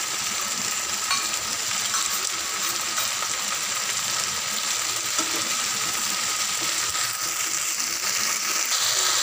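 Chopped okra, tomato and capsicum sizzling steadily in hot mustard oil in a frying pan while being stirred with a spoon, with a few light clicks of the spoon against the pan.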